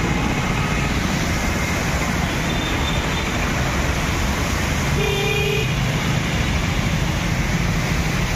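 Steady road traffic noise with a short vehicle horn toot about five seconds in.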